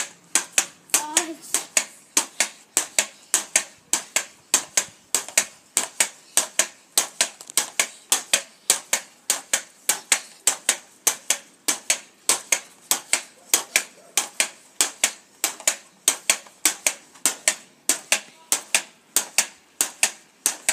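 Pogo stick bouncing steadily on brick paving: a sharp clack at each landing, in an even rhythm of about two to three a second.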